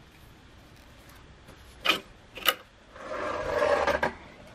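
Plastic parts of a string trimmer and its line spool being handled. There are two sharp clicks about half a second apart, then about a second of scraping and rubbing.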